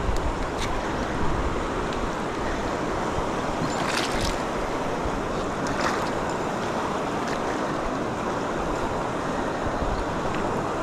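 Steady rush of shallow river rapids, with a few faint short ticks on top.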